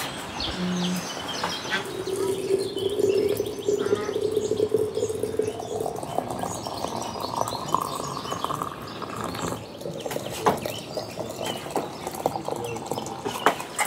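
Birds chirping, with a long steady tone that steps up in pitch about halfway and then fades, and scattered clicks and knocks.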